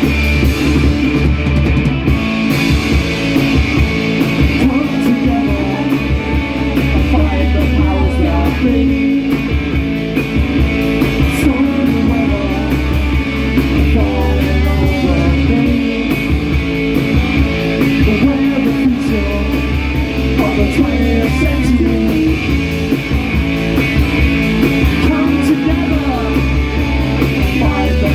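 Live rock band playing a song at full volume: electric guitars and drum kit, with no clear sung words.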